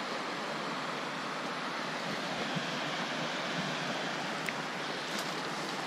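Steady outdoor rushing noise, with a few faint ticks as someone walks through dry grass and brush.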